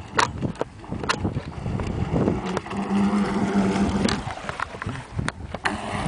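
Fingers rubbing and knocking on the camera close to the microphone, with a steady motor hum that comes in about three seconds in, stops, and starts again near the end.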